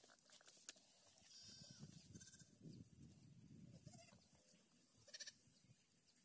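Faint animal calls: three short pitched cries, at about one and a half, two and a quarter, and five seconds in, over a low rumbling background.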